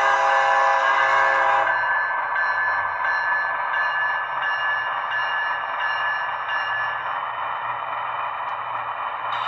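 Model diesel locomotive's sound decoder playing a multi-chime horn that cuts off about 1.7 s in, then a bell ringing about every 0.7 s until near the end, over the steady sound of the locomotive's diesel engine, all through the model's small speaker.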